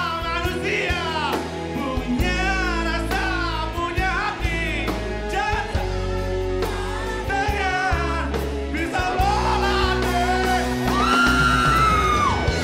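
Male rock-style singing in a contest of high-pitched voices: singers belting high, wavering lines into microphones over loud rock backing music, ending on a long held high note.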